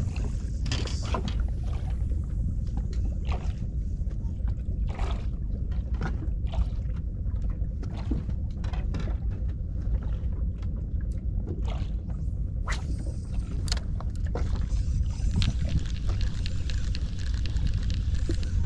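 Small waves lapping and slapping against the side of a drifting fishing boat, as irregular short splashes and knocks over a steady low rumble.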